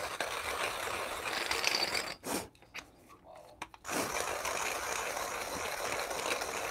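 Normcore manual hand grinder being cranked, coffee beans crunching and scraping through its burrs. The grinding breaks off about two seconds in, with a single knock, then resumes about four seconds in.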